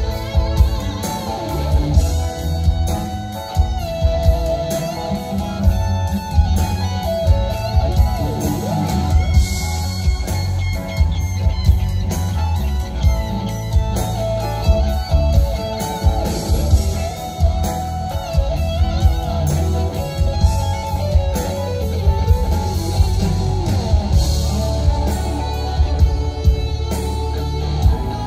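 Live rock band heard through a concert PA. A lead electric guitar plays long, bending lines over drums and bass, with no vocals.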